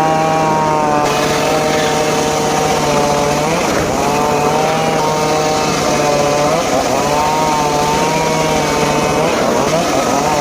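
Two-stroke chainsaw running at high speed, cutting teak wood. Its pitch sags briefly and recovers about every three seconds as the chain bites into the wood.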